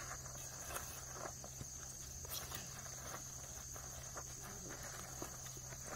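Faint scraping and crumbling of dry soil as a small three-pronged hand cultivator and gloved hands dig around a sweet potato, in scattered light scratches. A steady high-pitched tone runs underneath.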